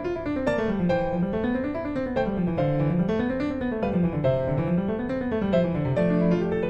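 Background piano music: a line of notes running up and down in repeated waves over held chords.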